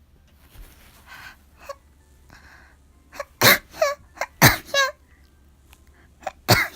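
A young woman sneezing repeatedly with her nose itching: a few breathy inhales, then a run of sharp voiced sneezes, the two loudest about a second apart, followed by smaller ones near the end.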